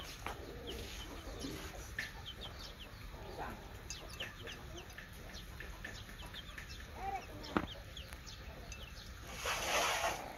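Chickens clucking and giving many short high peeps, over puppies' chewing and lapping at a metal food bowl. Near the end comes a short rush of noise, the loudest sound.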